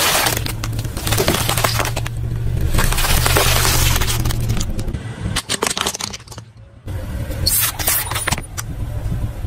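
A car tyre rolling over and crushing a plastic snack packet and other plastic items: long spells of crinkling and crackling with sharp cracks, over the car's steady low engine hum. A brief drop-out a little past the middle, then more crackling.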